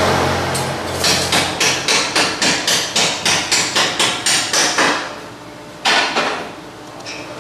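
Hammer blows in a rapid, even series, about four a second for some four seconds, then one more knock near the end.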